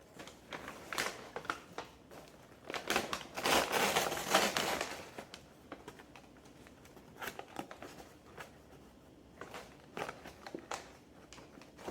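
Packaging crinkling and rustling as a potted orchid is handled and unwrapped, in irregular flurries, the loudest stretch a few seconds in and another burst near the end.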